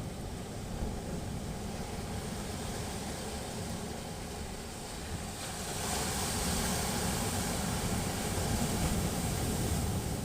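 Sea waves washing onto the shore, a steady surf noise that swells louder about six seconds in as a wave comes in.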